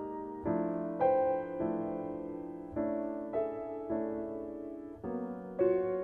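Slow instrumental background music on piano: chords struck about once a second and left to ring.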